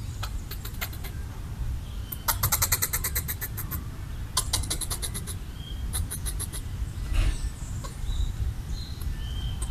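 Red squirrel chattering: rapid trains of sharp clicks, about ten a second, in several bouts, the longest and loudest about two to four seconds in. It is a territorial warning call aimed at a perceived threat.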